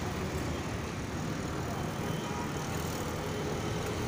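Steady low rumble of distant vehicles, with no distinct events.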